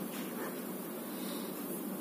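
Steady room noise: an even hiss and hum with no distinct events.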